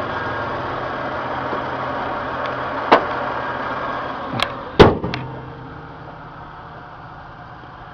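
2002 Toyota Tacoma's six-cylinder engine idling steadily, with a higher fan-like hum over it. There are a few clicks, then a loud sharp knock about five seconds in, after which the higher hum falls away and only a quieter engine hum remains.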